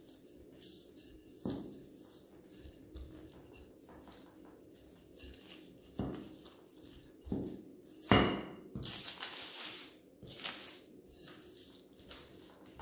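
Wooden rolling pin rolling out puff pastry on parchment paper. It gives a few sharp knocks and thumps, the loudest about eight seconds in, followed by a couple of seconds of paper rustling.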